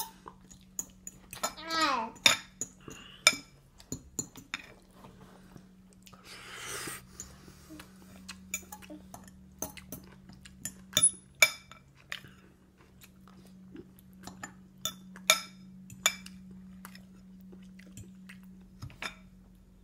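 A toddler eating pasta with her fingers in a plastic high chair: irregular small clicks and taps from mouth, fingers and tray. About two seconds in she makes a short high vocal sound that falls in pitch.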